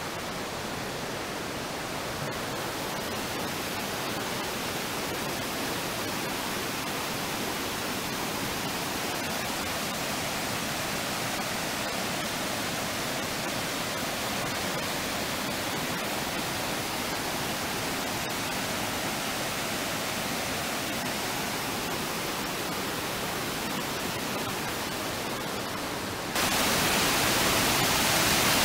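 Steady rush of water from the Una river's travertine waterfalls and rapids, jumping suddenly louder and brighter near the end.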